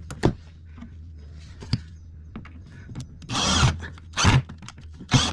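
Building work by hand: a few sharp knocks and two short rasping scrapes over a steady low hum.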